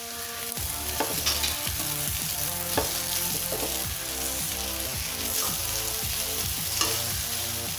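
Beef pieces sizzling in hot oil in a pan while being stirred with a metal spatula, which scrapes and clinks against the pan several times.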